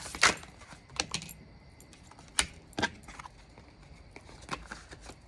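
Tarot cards being handled and drawn from the deck: a string of irregular sharp snaps and taps, card against card.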